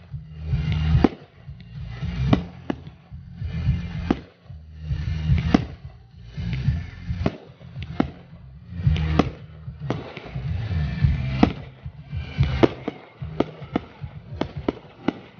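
Fireworks display: shells bursting in repeated sharp bangs, with a quick run of bangs near the end, over rumbling booms and music playing alongside.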